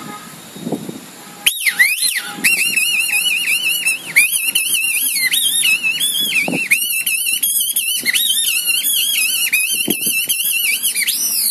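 Kathputli puppeteer's reed whistle voicing the marionettes: a high, squeaky, warbling chatter. It opens with two swooping calls, then from about two and a half seconds becomes a fast, wavering trill around one pitch.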